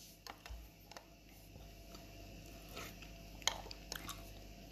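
A person chewing food close to the microphone: faint, irregular wet mouth clicks and smacks.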